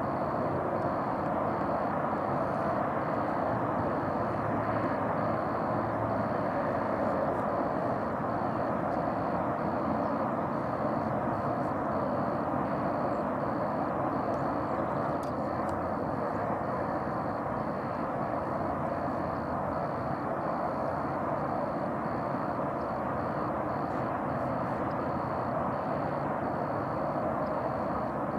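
Steady outdoor background roar with no distinct bird calls, unchanged throughout. A faint high-pitched tone flickers on and off above it.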